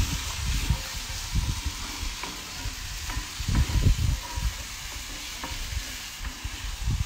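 Cannellini beans, shallots and garlic sizzling in hot olive oil in a black pan, stirred with a wooden spatula that scrapes and knocks against the pan at irregular intervals.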